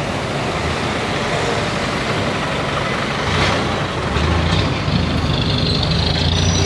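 Busy street traffic: vehicle engines and tyre noise passing, with a heavier engine rumble coming up about four seconds in, heard through a body-worn wireless lavalier mic under a shirt.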